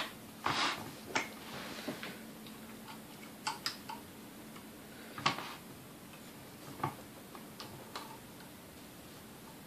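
Scattered clicks and brief scrapes of a screwdriver and small metal parts on the rear motor end of a Sunbeam Mixmaster Model 12 stand mixer during disassembly. The sharpest click comes about five seconds in.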